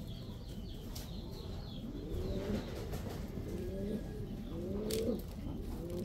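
Domestic pigeons cooing: a run of low coos, each rising in pitch, from about two seconds in until about five seconds.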